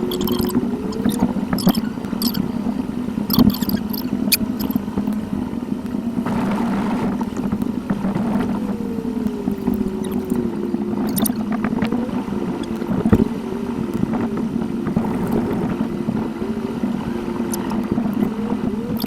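Car interior noise picked up by a dashcam and played back fast-forward: a steady engine and road hum, with the engine note gliding up and down in quick succession and scattered sharp clicks.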